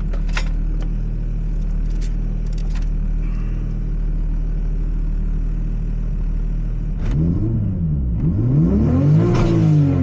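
LS2 V8 engine idling steadily, then revved in a few throttle blips from about seven seconds in, its pitch rising and falling with each one. A few faint clicks sound in the first three seconds.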